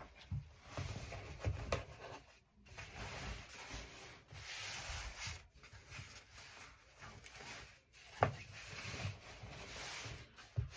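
Fabric rustling and rubbing as it is handled and smoothed by hand across a cutting mat, with a single sharp click about eight seconds in.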